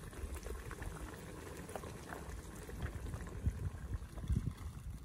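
Pot-au-feu simmering in a large aluminium pot, a steady bubbling with scattered small pops.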